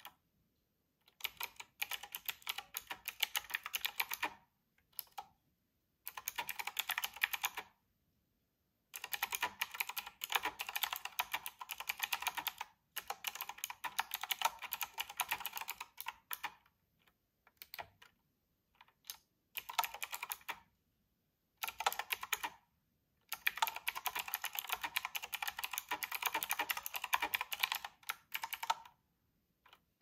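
Fast typing on a typewriter-style keyboard with round, rimmed keycaps: dense runs of clicking and clacking keystrokes lasting one to five seconds each, broken by short pauses.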